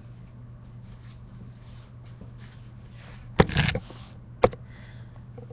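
Faint rustling and handling noises, then a loud, brief burst about three and a half seconds in and a single sharp click about a second later.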